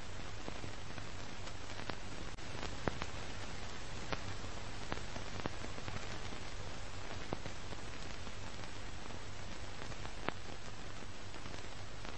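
Steady hiss over a low hum, with scattered clicks and pops, the strongest about three seconds in: the surface noise and crackle of an old film soundtrack.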